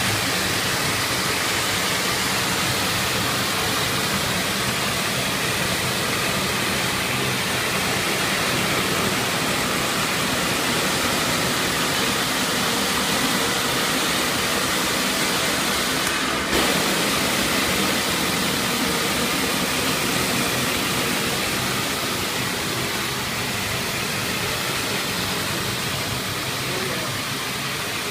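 Tile and grout cleaning machine running with a steady rushing hiss, the sound of high-pressure water and vacuum extraction; there is one short click about halfway through.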